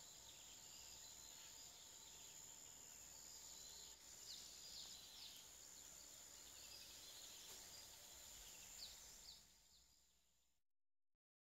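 Faint outdoor nature ambience of scattered small bird chirps over a soft hiss and a thin, steady high tone, fading out near the end.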